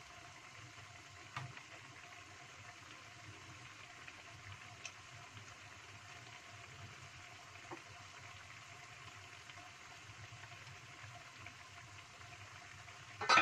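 Chicken and spiced broth simmering in a wok, a steady faint bubbling with occasional small pops as the sauce cooks down. A sharp metallic clatter right at the end, as the wok's metal lid is set on.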